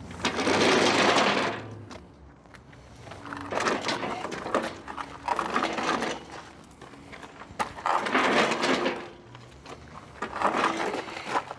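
Dolly wheels crunching and grinding over gravel in about five short pushes, under the weight of a tall homemade elevator mast.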